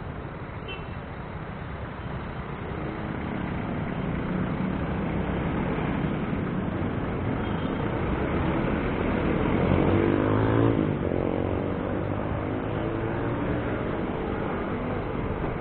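Urban road traffic: engines of cars, jeepneys and motorcycles running, growing louder as the traffic moves off. About ten seconds in, one engine revs up with rising pitch as a vehicle accelerates close by, the loudest moment.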